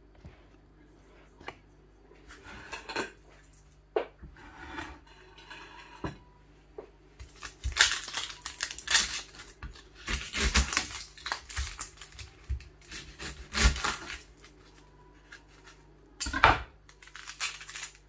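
A kitchen knife peeling and cutting a red onion on a wooden chopping board: irregular knocks of the blade on the board and short scraping, rustling strokes as the papery skin comes away, sparse at first and busier from about seven seconds in.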